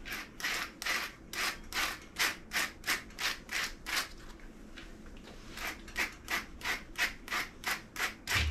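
Slicker brush raked through matted hair on a dog's tail in quick, even strokes, about three a second, pausing briefly about halfway through: the brush dragging against tangles.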